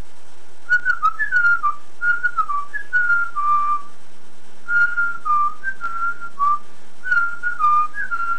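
A person whistling a simple tune in four short phrases of a few notes each, with brief pauses between the phrases.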